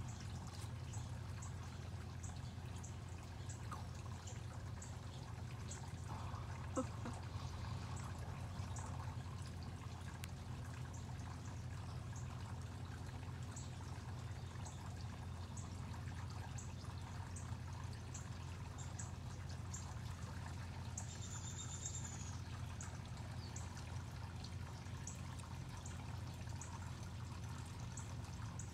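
Steady trickling, pouring water over a low steady hum, with faint high ticks repeating about every two-thirds of a second and a brief high tone about three-quarters of the way through.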